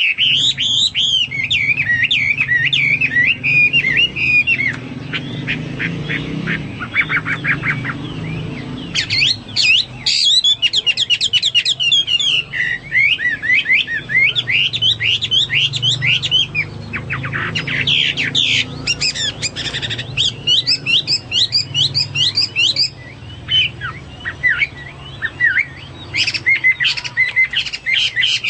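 Chinese hwamei (melodious laughingthrush) singing loudly and continuously: long runs of rapid, varied whistled and trilled phrases, with a couple of brief softer lulls.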